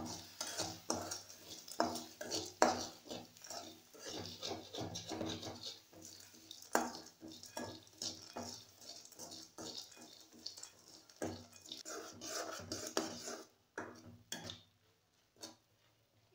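A metal spatula scraping and clinking against an aluminium kadai in quick, irregular strokes as peanuts are stirred with sugar and a little water. The strokes stop near the end, with one or two faint scrapes after.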